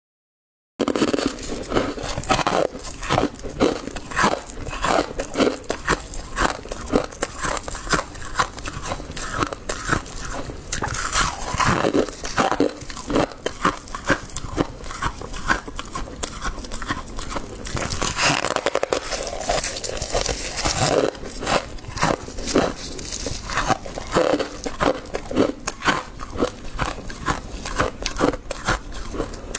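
Close-up crunching of soft freezer frost being bitten and chewed, many crunches in a dense run starting about a second in.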